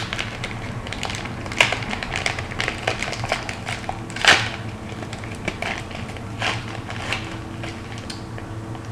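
Cracker snack package crinkling and crackling as it is torn open by hand: irregular crackles throughout, with one louder crackle a little over four seconds in.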